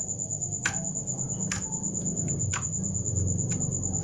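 Slime being squeezed and kneaded by hand, giving sharp clicks and little bubble pops about once a second over a soft squishing. A steady high-pitched tone runs underneath.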